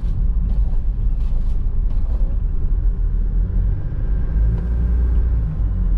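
Steady low rumble of a moving car's engine and road noise, heard from inside the cabin.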